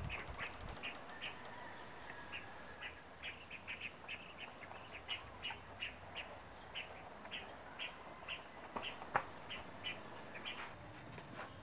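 A bird chirping over and over, short chirps about two or three a second, over a faint outdoor background. A single sharp click stands out about nine seconds in.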